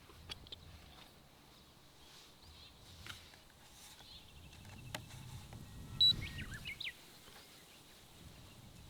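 Songbirds calling: a faint trill near the middle, then a short cluster of sharp chirps and whistles about six seconds in, over faint low background noise with a few light clicks.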